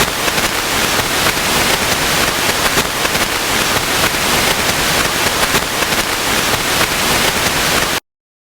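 Loud, steady hiss full of dense crackle, like broadcast static, that cuts off suddenly near the end.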